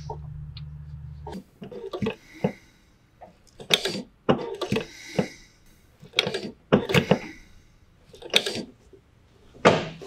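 Brake fluid and air bubbles gurgling and spurting out of clear bleeder tubes into the master cylinder's plastic reservoir in irregular bursts each time the brake pedal is pushed: trapped air being bled out of the master cylinder. A low steady hum stops about a second and a half in.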